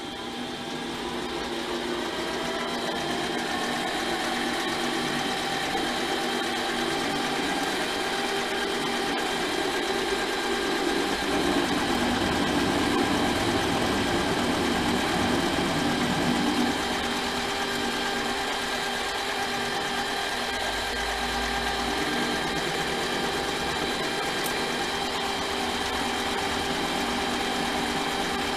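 Metal lathe running with a steady motor whine that builds up over the first few seconds. A louder cutting noise comes in about ten seconds in and eases off at about seventeen seconds, as the tool takes a pass on the workpiece.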